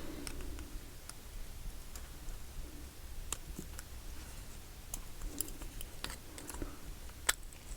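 Light, scattered clicks of small metal lock parts (a pin spring and pins) being handled in and against a clear acrylic lock while it is being repinned, with the sharpest click near the end.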